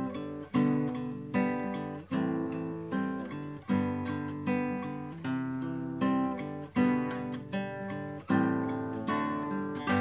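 Acoustic guitar strummed in chords, a strong strum about every three-quarters of a second, with no voice over it.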